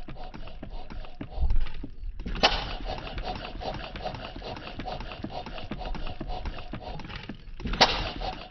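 Alyn Foundry RLE hit-and-miss stationary engine running with its flywheels spinning: a fast, even mechanical clatter. A heavier thump comes about a second and a half in, and louder, sharper bursts come at about two and a half seconds and again near the end.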